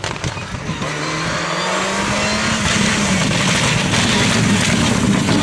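Mitsubishi rally car approaching at speed, its engine held at high revs and growing steadily louder.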